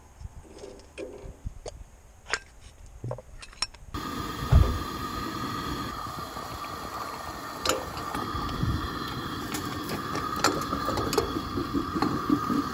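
Light clinks of a spoon and metal coffee basket as grounds are loaded into an enamel percolator. From about four seconds in, a propane camp stove burner gives a steady hiss under the percolator, with scattered ticks and clinks of the pot and lid as it comes to a boil.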